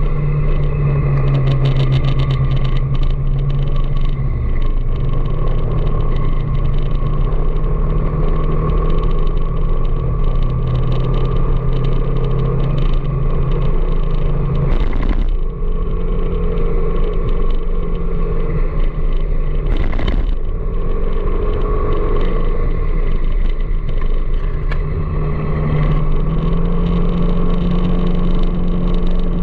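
Motorcycle engine running steadily under way. Its note drops with a sharp knock about halfway through and rises again near the end, and there is another brief knock a few seconds after the drop.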